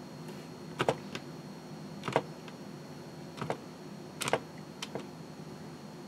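Keys of an Elektronika MK-52 programmable calculator being pressed one at a time: about eight short, sharp clicks, several coming in quick pairs.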